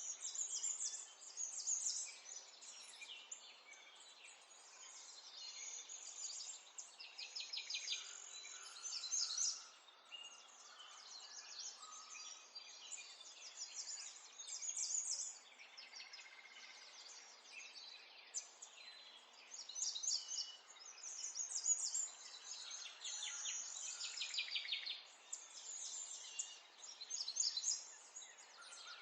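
Several small songbirds singing together, a busy mix of high chirps, twitters and fast trills that come and go in clusters every few seconds, over a faint steady hiss.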